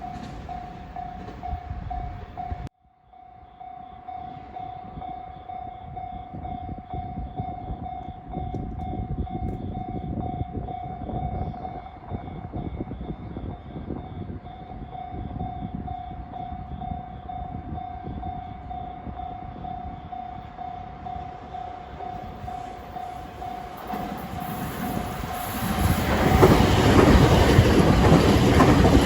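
Japanese level-crossing warning bell ringing steadily while trains run by on the line. Briefly cut off about three seconds in, then ringing again. Near the end a 521-series electric train comes through, its rumble growing much louder.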